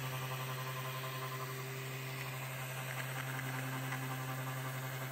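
Power sander running steadily on a teak board: a constant low hum with a light hiss.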